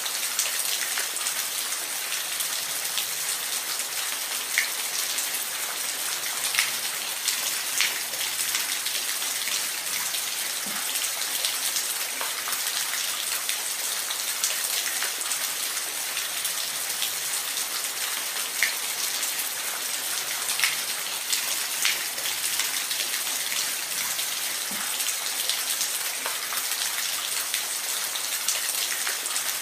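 Steady hiss of falling water splashing, with scattered louder drips and splashes standing out now and then.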